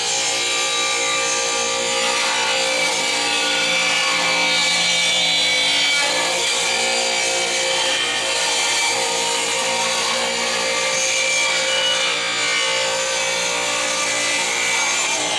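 Power saw running steadily and cutting through a wooden board to take off a knot.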